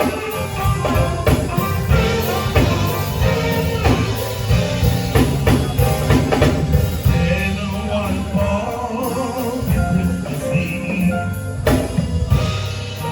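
Live band playing a gospel song, with drum kit and guitar, between sung lines.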